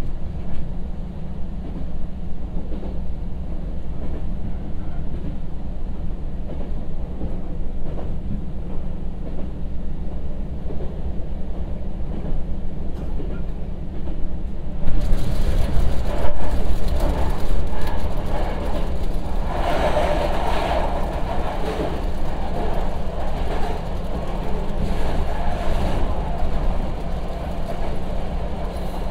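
Running noise of a Kyoto Tango Railway KTR700 diesel railcar under way: a steady low engine drone with wheel and rail noise. About halfway through, the noise grows louder and fuller as the railcar runs into a tunnel.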